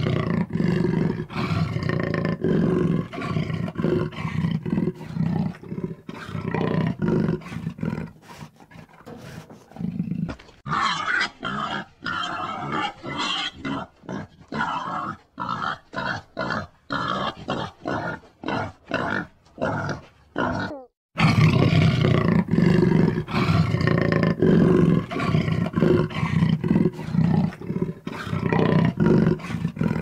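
A tiger growling and roaring in a run of short, repeated calls. About ten seconds in the sound cuts to higher, harsher calls, and about twenty-one seconds in it cuts back to deep, loud growls.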